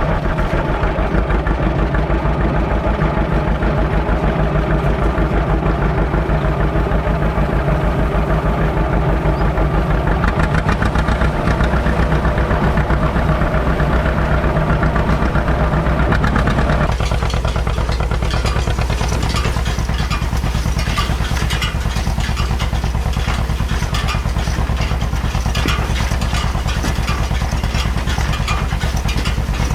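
Farm tractor engine running steadily. About seventeen seconds in the sound changes suddenly, losing its deeper tone and turning thinner and more rattly.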